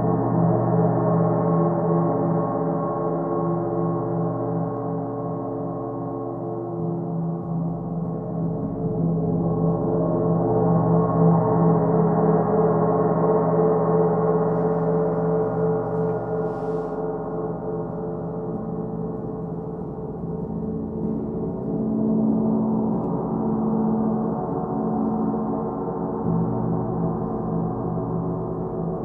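Large hanging gongs played with soft felt mallets in a continuous wash of many overlapping, sustained tones that swell and ebb, loudest about halfway through. A low tone pulses slowly near the end.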